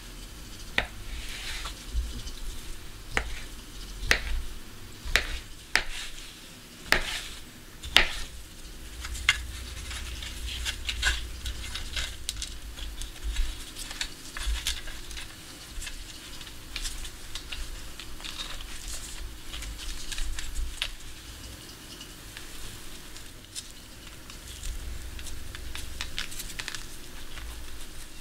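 A mixture cooking in a pot on the heat, being stirred, with several sharp knocks against the pot in the first eight seconds and then steady scraping and small crackling clicks.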